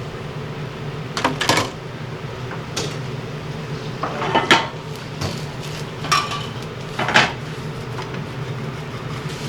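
Plates and cutlery clattering as they are handled, a handful of sharp clinks a second or so apart, over a steady low hum.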